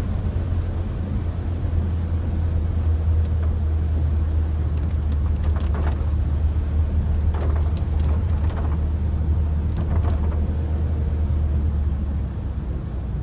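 Honda Brio's small four-cylinder petrol engine running steadily under load in a low gear up a steep climb, with road and tyre noise. The engine note drops off about a second before the end.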